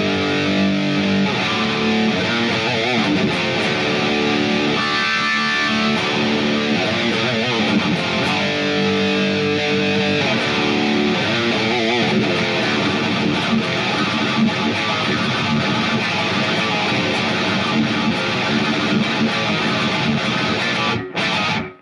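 Electric guitar playing melodic death metal riffs through a Line 6 POD HD Pro modeller, power amp and 2x12 cabinet, recorded with the camera's own microphone. The sound is steady and loud, with a brief drop near the end before it cuts off.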